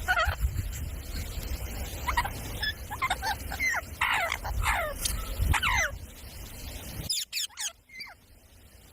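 Indian ringneck parakeet giving clusters of short, sharply falling squawks, with a low rumble underneath that stops about seven seconds in.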